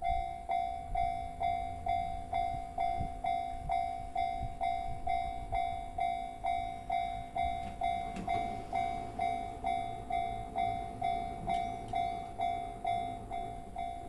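Japanese railway level-crossing warning bell clanging steadily at a little over two strikes a second, starting suddenly as the crossing's red lights begin to flash. It signals that a train is approaching.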